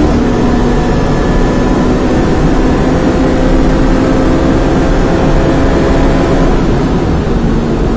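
Ferrari 458 Challenge's V8 accelerating hard at high speed, its engine note climbing slowly with speed over heavy wind and road noise. The note steps down right at the start and drops again about seven seconds in.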